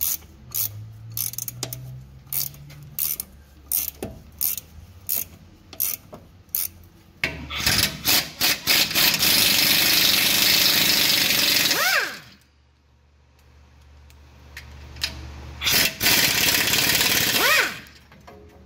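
A ratchet clicking in short strokes, about two clicks a second, as it works the rusty nut off the top of a front shock absorber. Then a power tool runs hard on the shock's mounting nuts in two runs, each winding down in pitch as it stops.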